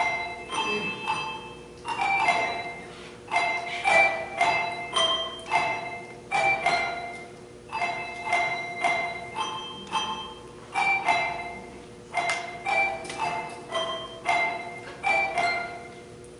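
Handbell choir playing: chords of handbell notes struck at a steady pulse, each ringing on and fading, in phrases of a few seconds with short breaths between.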